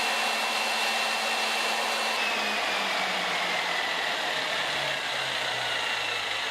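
Electric drill motor driving a homemade line boring machine, running with a steady whine, then slowing from about two seconds in, its pitch falling gradually.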